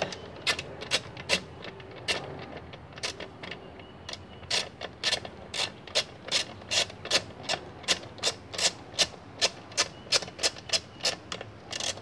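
Hand ratchet wrench clicking as it backs out a screw on a lawn mower engine's top cover. The clicks are sparse and uneven at first, then settle into a steady run of about two to three a second.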